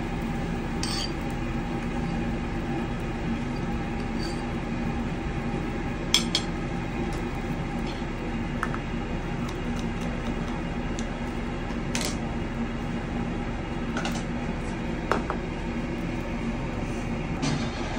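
Dishes and cutlery clinking a few times, sharp single clinks at intervals, over a steady background hum at a dining table.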